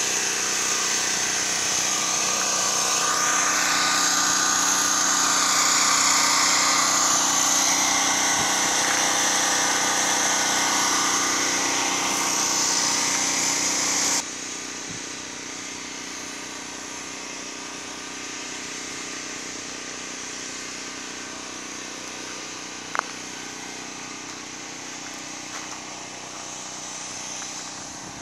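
An engine running steadily with a whine, then cutting off suddenly about halfway through and leaving a quieter background with a single sharp click.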